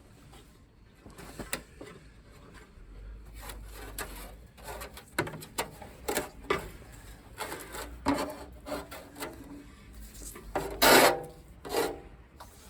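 Irregular scraping and rubbing as an old rubber window seal and its sticky residue are cut and worked off a Land Rover side panel's window frame, with a louder short scrape near the end.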